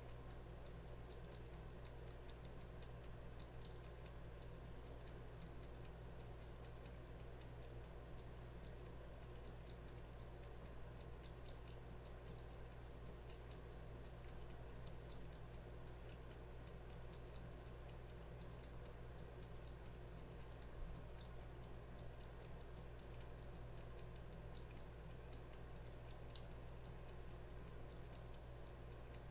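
Faint trickle of a thin stream of water from a bathroom faucet into the sink, with scattered small drips and ticks as a cat laps at the stream.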